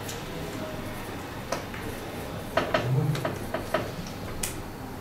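Quiet room tone with a scattering of small clicks and taps, a quick run of them in the middle and one more near the end.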